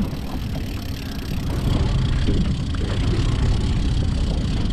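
Small outboard motor running steadily at trolling speed on an aluminum boat, a constant low rumble mixed with wind and choppy water.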